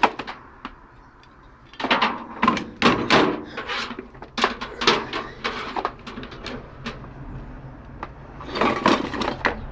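Scrap being handled by hand: irregular knocks and clatters, busiest in a cluster about two to three seconds in and again near the end.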